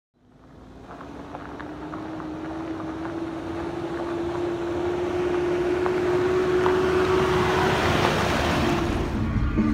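Minivan with a loaded roof bike rack driving up a dirt road and passing close by: the engine hum and tyre noise on gravel fade in and grow steadily louder, peaking as it goes by about eight seconds in, and the engine hum fades just after.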